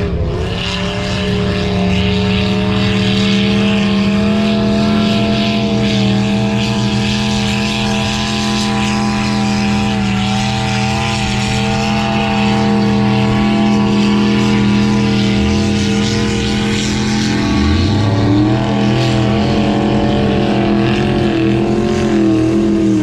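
Off-road vehicle engine running hard at high, nearly steady revs. Twice in the last third a lower engine note rises in pitch as another engine is revved.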